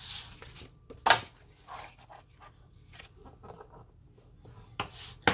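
Bone folder drawn along a groove of a Scor-Pal scoring board, scoring cardstock card bases two at a time: a short scraping stroke about a second in and another near the end, with faint paper rubbing and shifting between.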